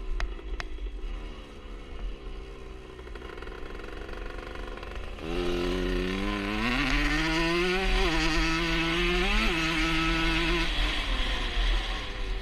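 1977 Honda CR125 Elsinore's single-cylinder two-stroke engine comes in about halfway through, revs up with a rising pitch, blips once more, then cuts out near the end.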